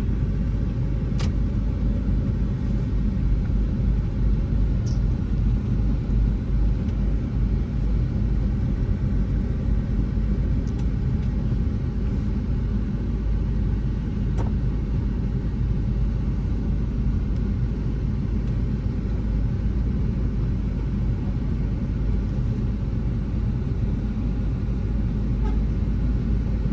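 Steady low rumble of a car's engine and tyres heard from inside the moving car, with a couple of brief clicks, one about a second in and one about halfway through.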